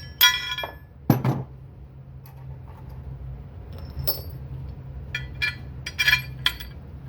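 Steel bolts and washers clinking and ringing against the drilled steel plates as the bolts are pulled out and the washers handled: a few sharp ringing clinks, a duller knock about a second in, then a run of clinks near the end. A steady low hum underlies it.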